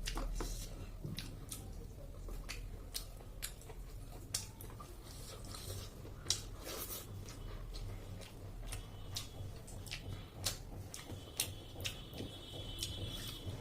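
A person chewing and biting food, with wet mouth smacks and frequent short sharp clicks.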